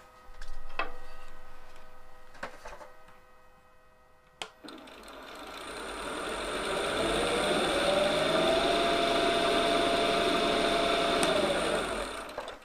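Wood lathe spinning an off-centre workpiece: a few knocks early on, then about four seconds in the motor winds up with a rising whine and runs steadily. It cuts off near the end as the lathe is stopped.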